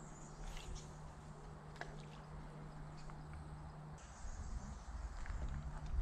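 Quiet outdoor ambience with a low steady hum and a few faint clicks. About four seconds in come louder scuffs and knocks, footsteps and handling noise from someone moving over rocks with a fishing rod.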